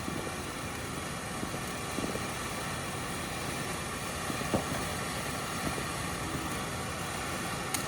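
Steady outdoor background rumble with a few faint, scattered pops from fireworks going off in the distance.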